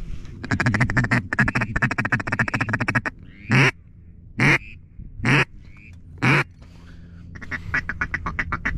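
Duck call blown in mallard style to a duck passing overhead. A rapid chattering feeding chuckle comes first, then four loud quacks evenly spaced about a second apart, then another fast chuckle near the end.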